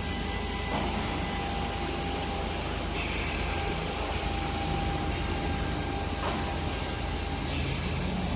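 CNC bridge cutting machine running steadily: a constant low hum with a faint steady whine over machine noise.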